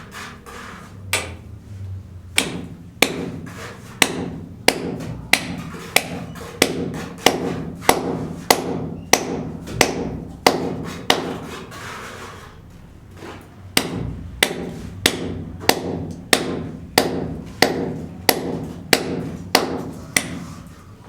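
Steady hammering: sharp hammer blows about every 0.6 seconds, pausing for a couple of seconds midway, then carrying on at the same pace.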